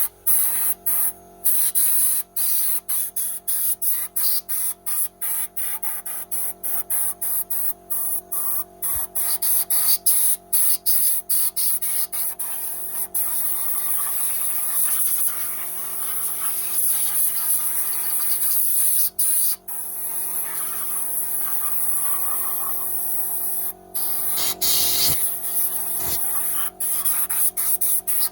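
Compressed air hissing from a blow nozzle, in many quick short blasts and then a steadier blow from about halfway through, clearing metal swarf out of a freshly tapped spark plug hole. A steady low hum runs underneath.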